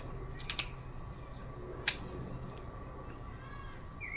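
Air pistol being readied to fire after loading a dart: a quick pair of small metallic clicks about half a second in, then one sharper click just before two seconds.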